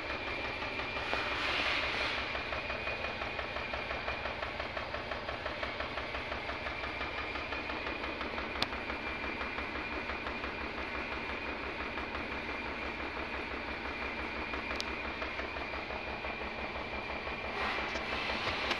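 Car engine idling roughly with a steady, uneven pulsing beat: the third cylinder is misfiring, which shakes the engine. A thin steady whine runs alongside.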